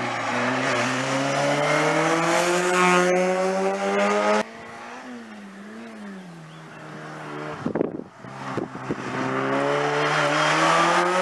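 Race cars on an uphill slalom course with their engines held hard in gear. The first car's engine climbs steadily in pitch until the sound cuts off abruptly about four seconds in. After a quieter stretch with a few brief thumps, a second car's engine comes up loud, again rising in pitch as it accelerates toward the microphone.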